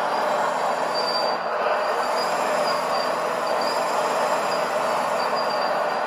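Steady mechanical running noise with a faint high whine that comes and goes, from the RC excavator's hydraulic pump and drive working.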